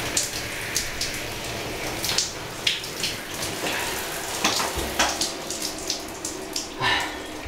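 Shower running: a steady spray of water from the shower head, with irregular splashes.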